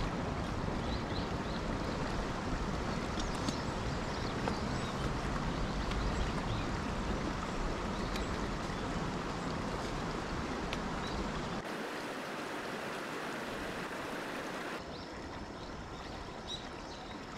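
Shallow stream running over rocks, a steady rushing, with a few faint light ticks. The low rumble under it drops away about two-thirds of the way in.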